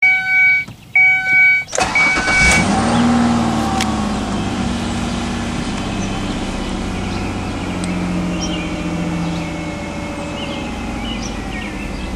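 A dashboard warning chime sounds twice, then the 2001 Ford Escape's 3.0 L Duratec V6 starts about two seconds in, flares up and settles into an idle that rises and falls. It is an erratic, rough idle with the check engine light on.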